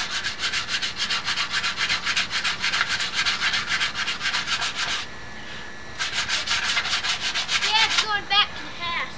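Sandpaper rubbed by hand along a wooden hiking stick, fast back-and-forth rasping strokes several a second to smooth the wood. The strokes pause briefly about five seconds in, resume a second later, and stop about eight seconds in.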